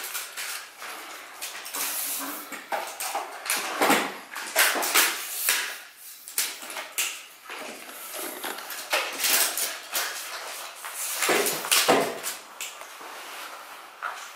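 Irregular rustles, clicks and knocks of equipment being handled and rummaged through in a metal carrying case, with shuffling movement around it.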